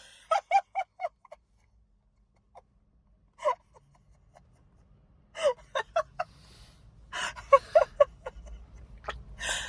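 Excited, breathless gasps and short high squeals from a person's voice, coming in quick clusters with pauses between them: a wordless reaction of delighted surprise.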